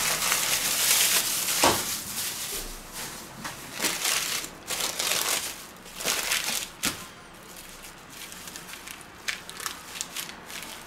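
Plastic bag being crumpled, loudest in the first couple of seconds, then paper wrapping crinkling and rustling as it is unfolded from slices of raw beef, with a couple of light knocks.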